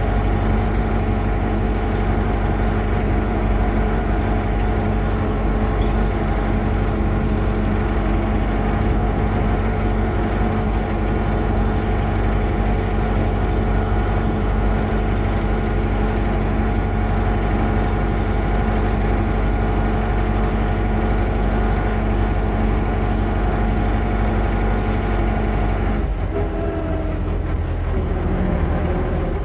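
Tractor engine running steadily under way. Near the end the engine note changes abruptly.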